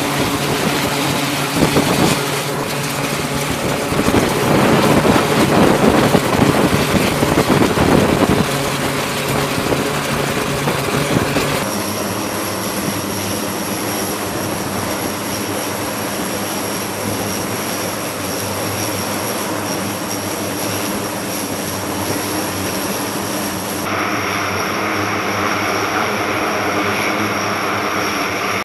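E-2D Advanced Hawkeye's twin turboprop engines running on the carrier deck, propellers turning, a steady pitched drone. It swells louder a few seconds in, and about twelve seconds in the sound shifts and a thin high whine joins it.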